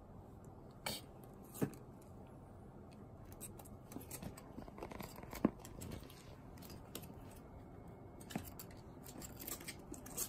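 Faint scuffling and clicking from a Shiba Inu puppy moving about on a cushioned vinyl floor mat while playing with a hand. A few sharper taps stand out, and a patter of small ticks grows over the second half.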